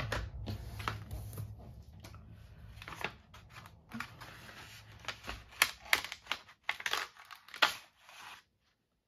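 Paper packaging being handled and opened by hand: crinkling and rustling with a run of sharp clicks and taps. It cuts off suddenly near the end.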